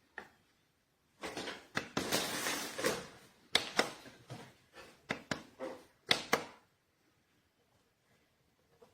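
A run of sharp clicks and knocks mixed with rustling, like an object being handled, lasting about five seconds and stopping suddenly, followed by quiet.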